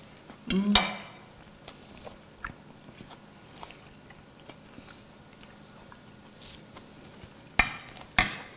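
Metal forks tapping and scraping on porcelain plates of leek risotto, with faint chewing between. A short hum of a voice and a sharp clink come about half a second in, and two loud ringing clinks about half a second apart near the end.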